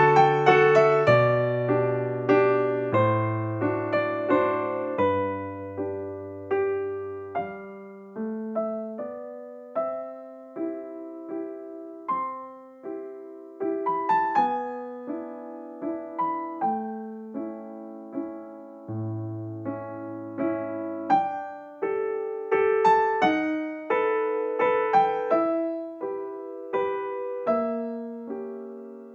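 Background music: a slow, gentle piano melody, notes struck one after another and left to fade.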